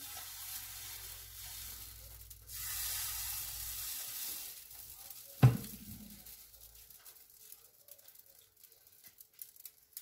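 Small rounds of qatayef batter cooking in a non-stick frying pan on gentle heat, a soft sizzle that grows a little louder about two and a half seconds in and then fades. A single sharp knock comes about five and a half seconds in, followed by faint ticks.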